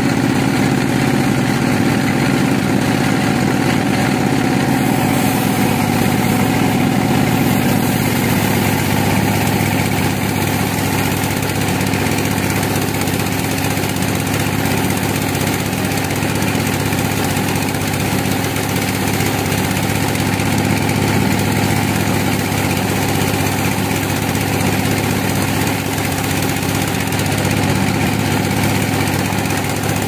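Large band sawmill running steadily while its blade cuts lengthwise through a big log. A steady mechanical drone with a broad hiss over it that grows a little stronger about five seconds in.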